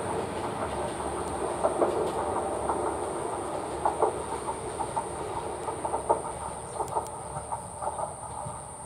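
Tsugaru Railway Tsugaru-21 diesel railcar running along the track, its wheels clacking over rail joints, the sound slowly fading as it pulls away.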